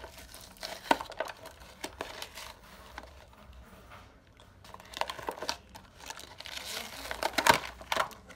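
Plastic and cardboard toy packaging crinkling and rustling as it is handled and pulled open, in irregular bursts, loudest near the end.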